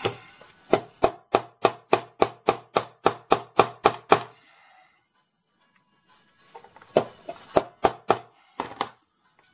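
A small hammer tapping on metal in a quick, even run of about three or four blows a second, then a pause and a few more scattered taps near the end, as a metal part is driven into a homemade banana connector.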